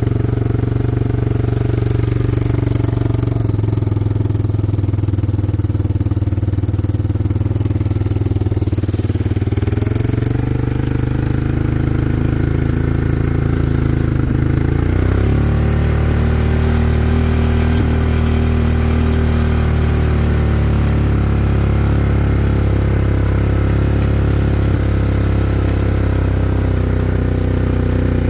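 A small vehicle engine running steadily while driving slowly, its note shifting about ten seconds in and again around fifteen seconds in.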